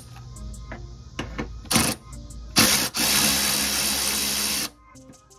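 A power ratchet spinning a socket on a long extension for about two seconds as it undoes a 10 mm bumper bolt, cutting off abruptly, after a few clicks and knocks of the tool being fitted.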